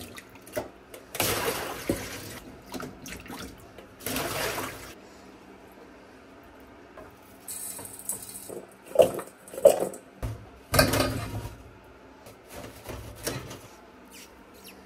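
Water splashing and sloshing as hands stir and rinse cut potatoes in a stainless steel bowl in a sink, with a tap running briefly near the middle. A few sharp knocks, the loudest sounds, come about two-thirds of the way through.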